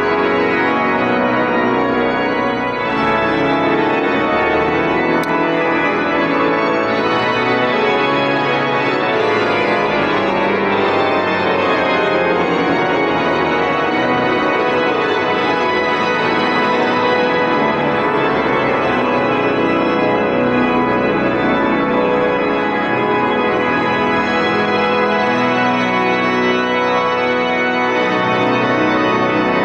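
Gottfried Silbermann pipe organ playing full, held chords that change steadily, heard in the large church.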